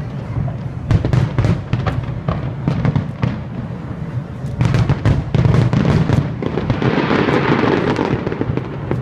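Aerial fireworks display: shells bursting in a rapid, uneven string of bangs, thickest about five to six seconds in.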